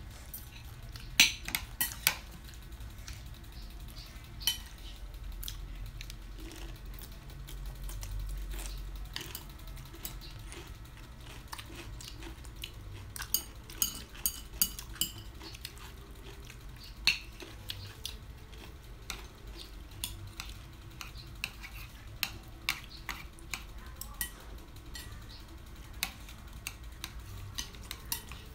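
Chopsticks clicking and tapping against plates, bowls and the serving platter while people eat, in scattered sharp clicks with a few quick flurries.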